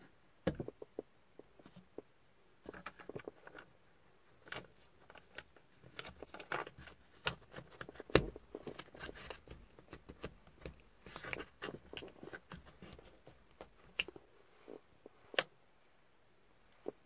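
Plastic clicks, taps and short scrapes as a rear-view mirror is handled and slid onto its windshield mount, then pushed down. The clicks come irregularly, with a sharp, loudest click about eight seconds in and another near the end.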